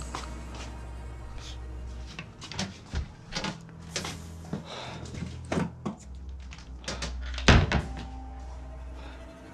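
A run of sharp knocks and clicks, like doors and cupboards being handled, with one heavy thump about seven and a half seconds in, over a low background music drone.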